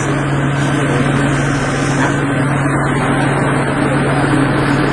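Steady low engine hum running evenly.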